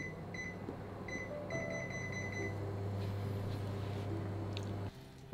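Induction cooktop beeping as its buttons are pressed to switch on and raise the power: single beeps, then a quick run of beeps. A steady low hum follows as the hob heats the pot, and it cuts off about five seconds in.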